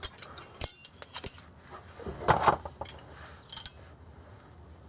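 Metal hand tools clinking and tapping in a few short, separate knocks: flare wrenches being handled and fitted onto the steel flare nuts of a fuel filter's line fittings.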